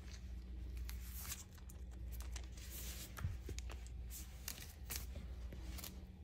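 Clear sticky tape on a Bernese mountain dog's paw crinkling and peeling in short, irregular crackles as it is pressed on and mouthed at. A low steady hum runs underneath.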